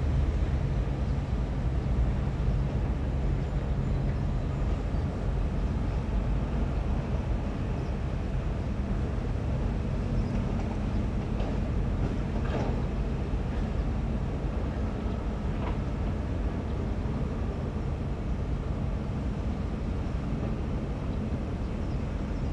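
Heavy diesel engines of dump trucks and an excavator running in a steady low rumble, with a few short knocks near the middle.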